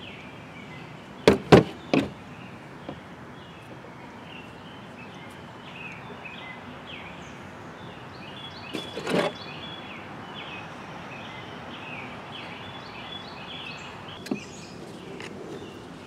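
Sharp knocks and clatter of a hard plastic recoil starter housing being handled and set against a table: three quick knocks about a second and a half in, two more just before the middle, and a lighter one near the end. Faint high chirping runs underneath throughout.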